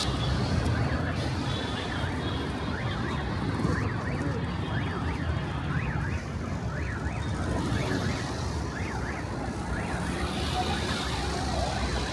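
An electronic alarm siren warbling, its pitch sweeping up and down about twice a second, over a steady rumble of street traffic.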